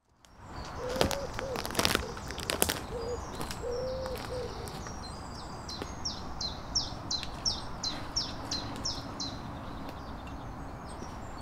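Woodland birdsong fading in: a low cooing call during the first few seconds, then a series of about ten quick, high, falling notes in the middle, over a steady outdoor background. A few sharp snaps or clicks sound in the first couple of seconds.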